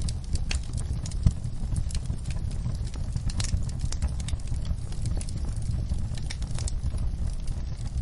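Log fire crackling: irregular sharp pops and snaps of burning wood over a steady low rumble of the flames, with one louder pop a little over a second in.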